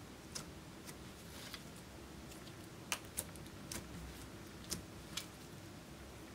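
Clear slime with lipstick and makeup worked into it, pressed and kneaded by hand, giving off scattered soft clicks and pops, about eight at irregular intervals with the loudest near the middle, over a faint steady hum.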